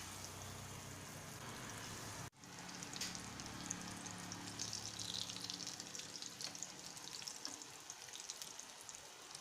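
Breadcrumb- and cornflour-coated paneer cutlets sizzling as they fry in hot oil, a steady hiss with a fine crackle of tiny pops. It breaks off for an instant about two seconds in and resumes a little stronger.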